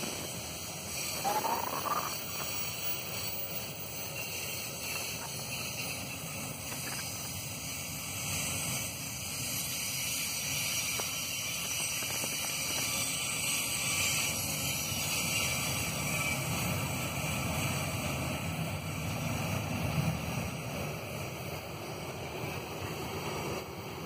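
Freight train wagons rolling past on the track: a steady low rumble and rushing noise that swells and eases slightly but never stops.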